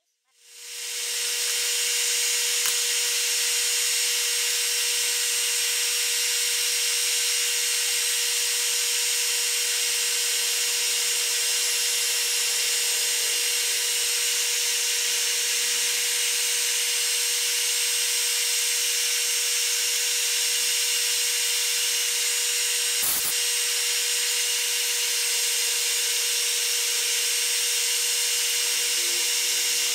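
Metal lathe running steadily with a constant whine, fading in over the first second. One sharp knock about 23 seconds in.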